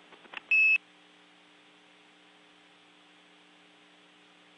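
A short, high electronic beep on a radio communications loop, lasting about a third of a second, followed by a steady low electrical hum with faint hiss.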